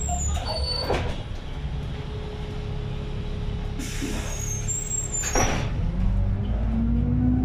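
City bus engine running as the bus creeps through traffic, heard from inside the cabin. Two short air-brake hisses come about a second in and about five and a half seconds in. Near the end the engine note rises as the bus speeds up.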